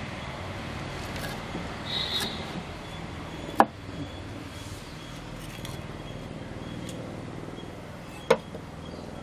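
Knife chopping small red onions on a wooden plank: soft, irregular knife taps with two sharp clacks, one about a third of the way in and one near the end.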